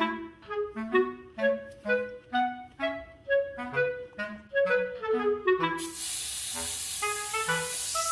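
Background music: a light clarinet-like melody in short, detached notes. About six seconds in, a steady hiss joins under the music.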